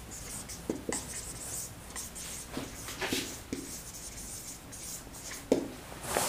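Marker pen writing on a whiteboard: a run of short scratchy strokes with brief pauses, as two words are written out by hand.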